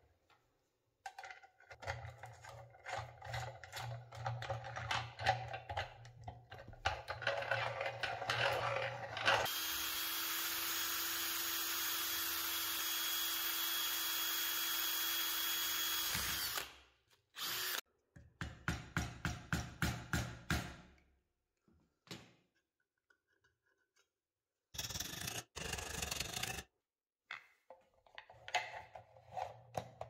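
Workshop tool sounds in short cut-together clips: scraping and clicking handling, then a power tool running steadily for about seven seconds before it stops abruptly, then a quick run of rhythmic strokes.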